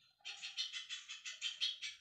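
A small songbird singing a fast, even run of high chirps, about seven a second, starting just after a brief pause.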